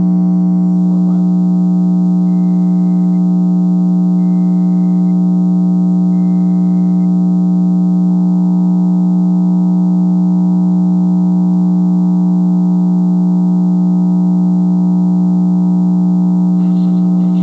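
Emergency Alert System broadcast over FM radio: three short data bursts of the SAME header, then about 8 seconds in the steady attention tone, which lasts about eight seconds. A loud, steady low hum runs under all of it, and a voice begins near the end.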